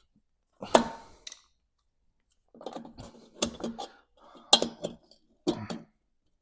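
Sharp metallic clanks and rattles of hand tools and loose metal parts against the bodywork of a classic Mini being dismantled, coming in irregular bursts with the loudest knocks about a second in and past the middle.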